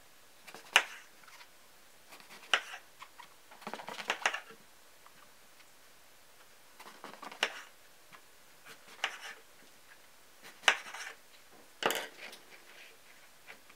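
A small kitchen knife cutting through eggplant and knocking on a cutting board: single sharp knocks a second or two apart, with a quick flurry of small knocks about four seconds in. Near the end, a louder clatter as the knife is laid on the board and the cut pieces are shifted.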